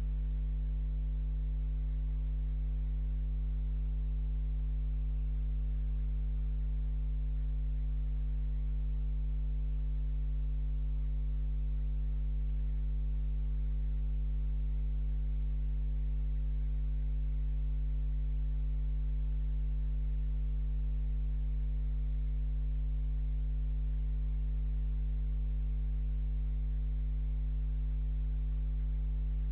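Steady low electrical mains hum with a faint hiss over it, unchanging throughout; no sound from the fox stands out above it.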